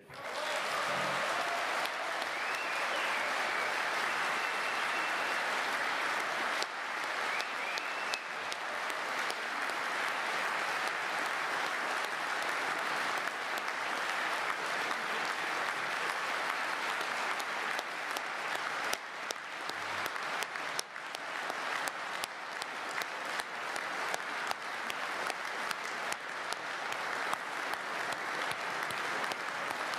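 A large audience applauding steadily in a standing ovation, many people clapping at once.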